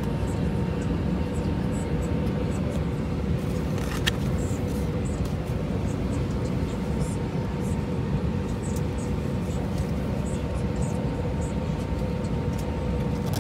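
Steady cabin drone of an Airbus A320 in flight, heard from inside the passenger cabin, a deep rushing noise with a faint steady hum on top. Light rustling of magazine pages and one sharp click about four seconds in.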